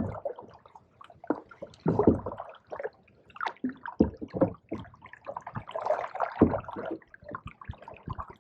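Canoe paddles dipping and pulling through pond water, with irregular splashes and drips.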